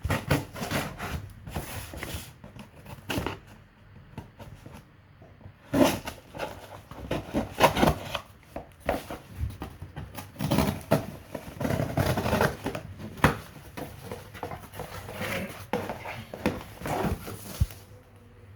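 Sealed cardboard box being opened by hand: irregular scraping, tearing and rustling of the cardboard and packaging, with a short lull about four seconds in.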